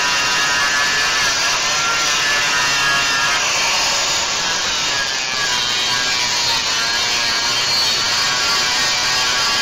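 A power tool cutting into a steel frame rivet: a steady whine that wavers in pitch over a harsh hiss.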